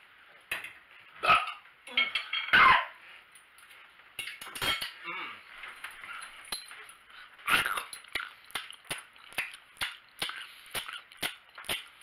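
Fork and knife clinking and scraping against a plate, a string of sharp clicks, louder in the first few seconds and lighter and quicker after.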